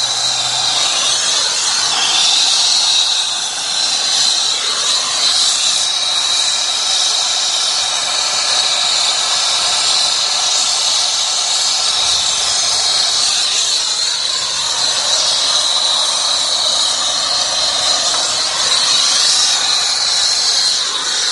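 Brazing torch flame hissing steadily while a copper refrigerant line is brazed onto a heat pump's service valve.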